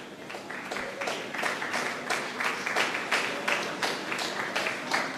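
A crowd applauding. The clapping grows thicker and louder about a second in.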